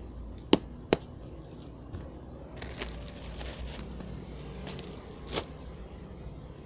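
Packaging being handled during an unboxing: two sharp clicks close together, then faint crackling and scraping, and another click near the end.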